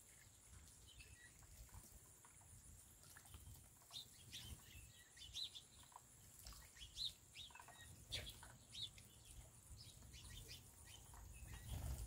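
Faint, scattered chirps of house sparrows, many short calls, thickest in the middle few seconds.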